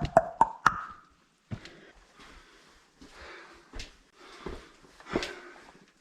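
Footsteps of a hiker on a steep rocky walking track: a quick run of sharp clicks in the first second, then scattered knocks with soft breathing between them.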